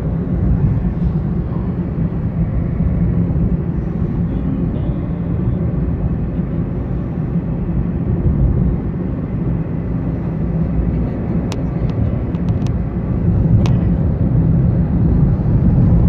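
Sandstorm wind buffeting the microphone as a steady, heavy low rumble, with a couple of sharp clicks about three-quarters of the way through.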